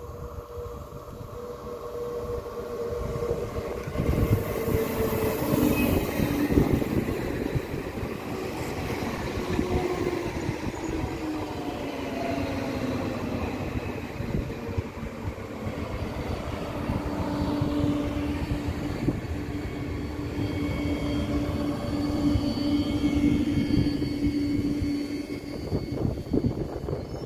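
Bombardier Regio 2N double-deck electric multiple unit passing through: the rumble of wheels on rail builds as it approaches and carries on while the carriages go by. A whine from the train drops in pitch as it passes and then holds steady.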